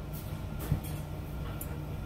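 Steady low hum of room background, with one soft knock a little under a second in.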